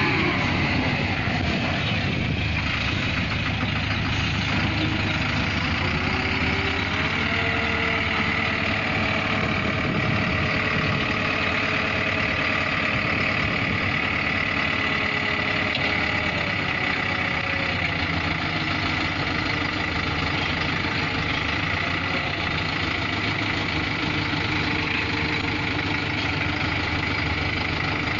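Dump truck's diesel engine running steadily while its hydraulic hoist raises the loaded bed to tip out soil. A whine over the engine rises in pitch a few seconds in and holds through the middle of the lift.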